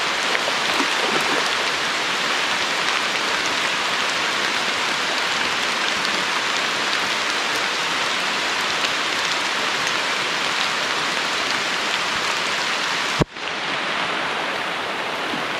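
Heavy rain falling steadily, an even hiss of drops. A single sharp click near the end, with a brief dip in the sound.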